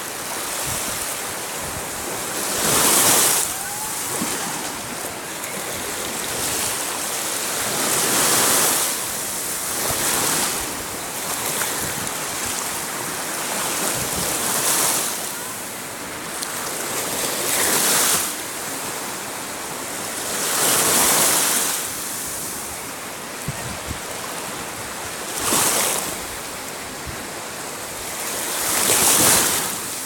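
Small waves washing up over wet sand at the shoreline: a steady hiss of foam and water that swells every few seconds as each wave runs in and drains back.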